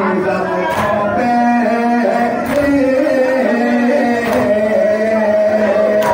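Men chanting a nouha, a Shia lament, together, with a unison chest-beat (matam) striking about every second and three-quarters, four strikes in all.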